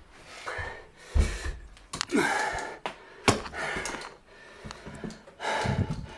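A man breathing hard in gasping, open-mouthed breaths just after a set of push-ups, a gust roughly every second. A dull thump about a second in and a sharp knock a little past the middle, from moving about and handling the camera, are the loudest sounds.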